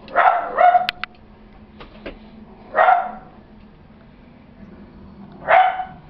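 A dog barking four times: two quick barks at the start, another about three seconds in, and one more near the end.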